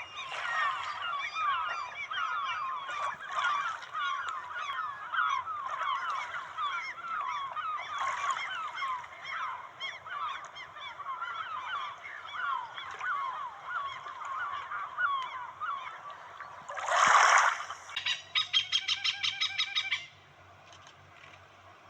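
A flock of birds calling together: many short, overlapping, downward-sliding honking calls. Near the end comes one loud harsh call, then a fast run of pulsed notes for about two seconds.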